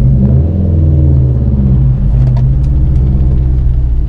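Subaru WRX STI's turbocharged flat-four engine heard from inside the cabin, pulling away at low speed. Its note rises a little at first, then holds steady.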